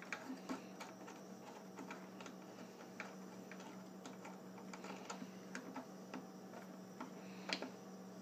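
Faint, sparse clicks and taps of fingers unthreading the arbor nut on a Harbor Freight 4-1/2 in. wet tile saw, with small metal handling noises and a few slightly louder clicks near the end. A steady low hum runs underneath.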